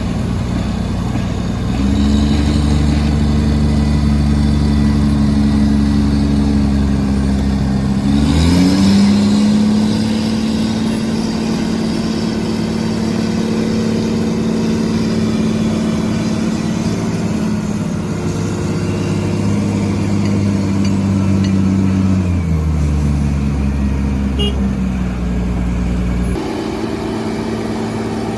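Heavy diesel engine of construction machinery running under load. It steps up in speed about two seconds in, rises again around eight or nine seconds, holds steady, then drops back after about twenty-two seconds and changes again near the end.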